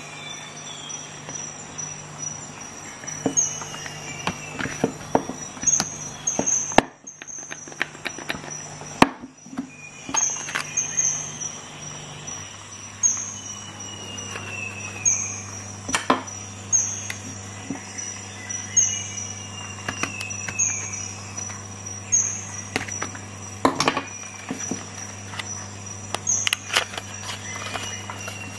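Sharp clicks, taps and rustles of hands handling a power tool and a small cardboard box of staples, over a steady low hum and a repeating pattern of short high chirps and falling glides.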